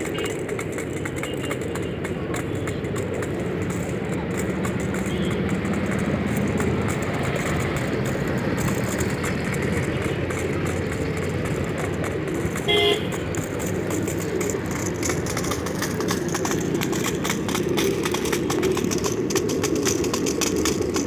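Steady outdoor traffic-like rumble and hiss, with one short vehicle-horn toot about thirteen seconds in.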